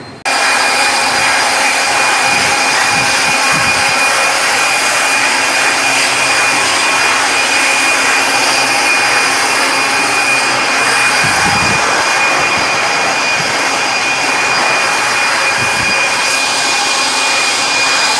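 Large 890 kW diesel generator set running at speed: a loud, steady engine noise with a high, steady whine over it. It cuts in abruptly right at the start.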